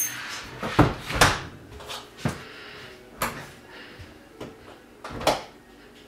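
Scattered sharp knocks and clatters of hard objects being handled, about five loud ones over several seconds, with an interior door or cupboard-type sound.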